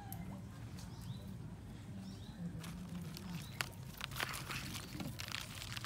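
Quiet outdoor ambience: a faint low hum, a few short high chirps, and a handful of small sharp clicks and rustles, most of them in the second half.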